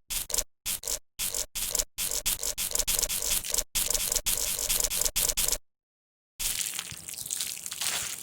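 Slime being squished and poked by hand. It makes a quick run of short squishes with silent gaps between them, then a pause of under a second about five and a half seconds in, then a longer unbroken stretch.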